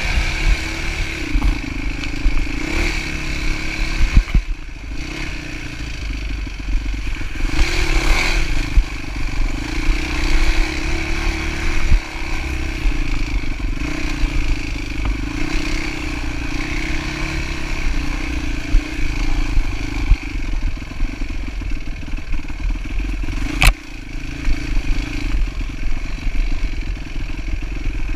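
Dirt bike engine running steadily while the bike is ridden over a rough grass track, its pitch rising and falling a little with the throttle. The bike rattles and knocks as it bounces, with one sharp crack about three-quarters of the way through.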